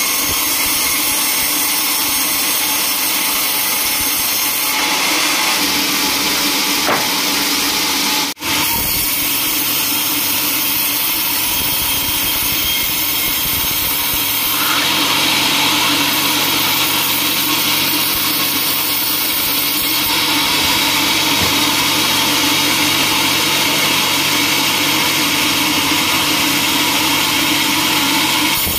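Band sawmill running and cutting through a teak log: a steady, loud hiss of the blade in the wood over the machine's hum. It breaks off for an instant about eight seconds in, and gets somewhat louder about fifteen seconds in.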